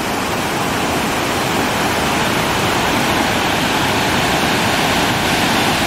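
Water pouring over the overflow spillway of a hydro dam and crashing onto the rocks below, a loud, steady rush.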